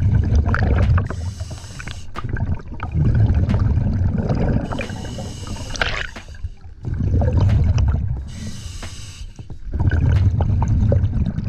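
Scuba diver breathing through a regulator underwater: a hiss on each inhale, then a low rumbling gurgle of exhaled bubbles, about three breaths in a steady rhythm.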